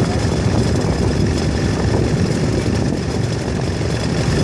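A steady, low engine rumble with no breaks.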